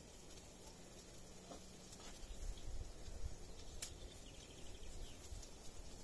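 Faint outdoor background with low rumbling that starts about two seconds in, and one sharp click nearly four seconds in.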